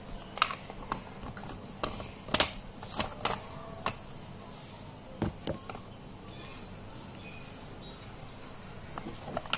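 Close-up chewing of hard slate: sharp, irregular crunches, a cluster of them in the first four seconds, two more around the middle and a couple near the end.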